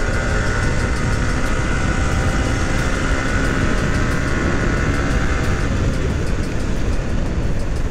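Yamaha R15 single-cylinder sport bike running at highway speed, about 90 to 106 km/h, its engine note heard under steady wind rush on the mount-mounted microphone. A faint steady whine fades out in the second half.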